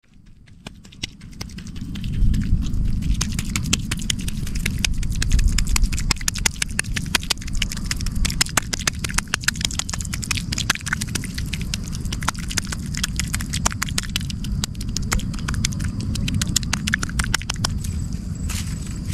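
Dense, irregular crackling and clicking over a low rumble, from a hand pressing and working in wet mud and grass roots at a pond's edge.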